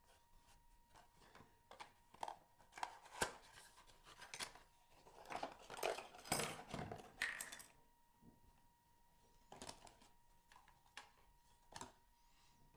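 Quiet handling sounds: scattered clicks, taps and rustles, busiest in the middle, with a faint steady high hum underneath.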